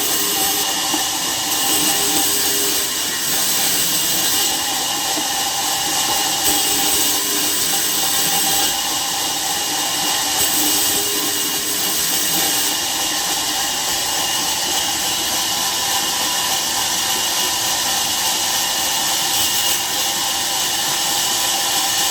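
Sawmill machinery running steadily: a continuous loud hiss with a few faint steady tones beneath it.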